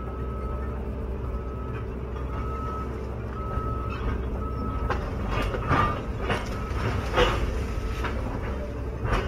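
Caterpillar 316EL excavator's diesel engine running steadily, heard from inside the cab, with a short beep about once a second for the first five seconds. In the second half come several sharp knocks and cracks, the loudest a little after seven seconds and near the end.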